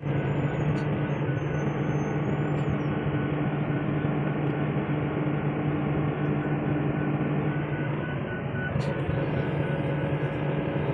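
Excavator's diesel engine running steadily close by, a constant low drone.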